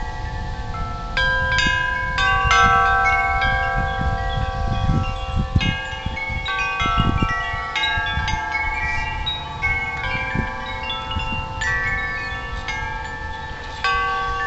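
Wind chimes ringing in gusty wind, many overlapping tones struck again and again at irregular moments, each ringing on and fading. Wind buffets the microphone underneath, in gusts strongest around the middle.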